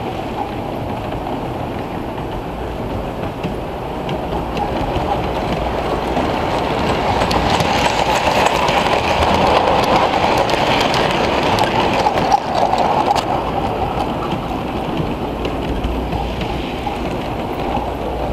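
Model train rolling along the track past the camera, its wheels rumbling and clicking over the rails. It grows louder as the cars pass close, about eight to twelve seconds in, then eases off.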